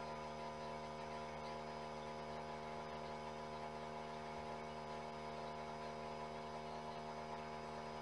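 Steady electrical mains hum with a buzzy edge, unchanging throughout.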